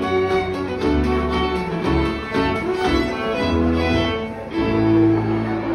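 Live contra dance band, fiddle, cello and keyboard, playing a tune. The fiddle carries a quick melody over bass notes that change about once a second.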